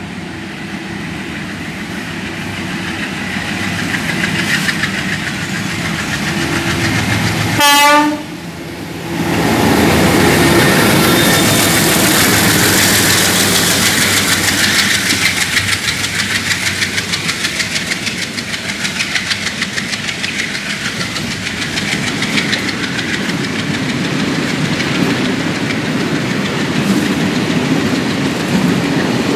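MLW diesel locomotive hauling a freight train, its engine growing louder as it approaches, sounding one short horn blast about eight seconds in as it passes. A long string of container wagons then rolls past with a steady, rhythmic clatter of wheels over the rail joints.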